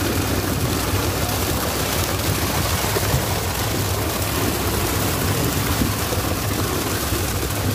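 A mass of skipjack tuna thrashing at the surface inside a purse seine net drawn up against the boat's hull, making a continuous dense splashing. A boat engine's steady low hum runs underneath.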